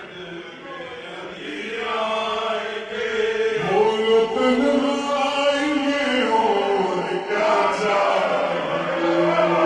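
Slowed-down, reverb-heavy recording of a male voice chanting a qasida in long held notes that slide in pitch, quieter for the first second or two and then fuller.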